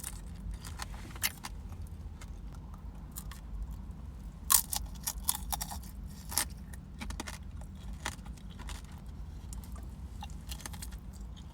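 Tanghulu's hard candied sugar shell cracking and crunching as it is bitten and chewed, a scatter of sharp cracks, thickest about halfway through.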